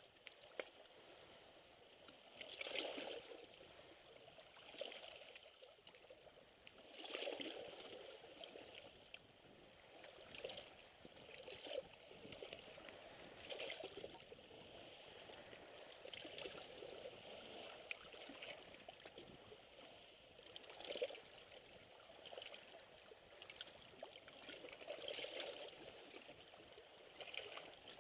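Small sea waves lapping and splashing against a shoreline rock, faint, with a soft splash every two or three seconds.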